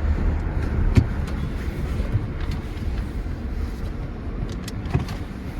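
Old Toyota Camry driving on a snowy road, heard from inside the cabin: a steady low rumble of engine and tyres, with a sharp click about a second in and a smaller knock near the end.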